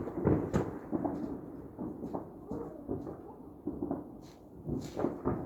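Fireworks going off: a string of irregular bangs with rolling, thunder-like rumble between them, the loudest bang right at the start.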